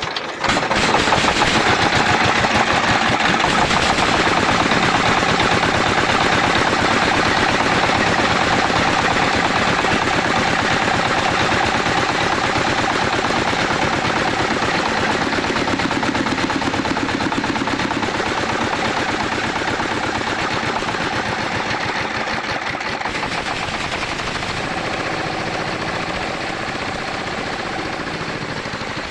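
Single-cylinder Fuchai 20 hp diesel engine running steadily with a rapid, even exhaust beat, the test run of the freshly repaired engine. The level eases slightly toward the end.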